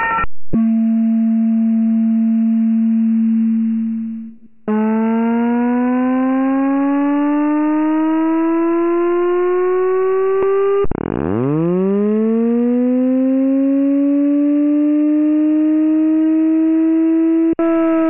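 Synthetic alarm tones from a Simplex 4003 voice evacuation panel's tone generator, played slowed down. A brief cluster of short tones gives way to a steady low tone that fades out about four seconds in. Then comes a slowly rising siren-like sweep, and a second sweep that starts very low, climbs steeply and levels off, like a mechanical siren winding up.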